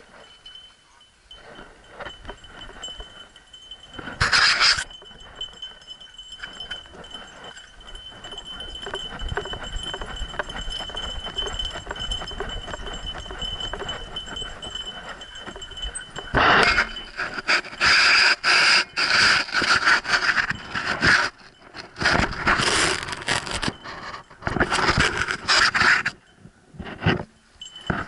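Jingling and rattling of a dog's collar and harness gear close to the camera, in a short burst early on and then in loud, choppy bursts through the second half as the dog moves.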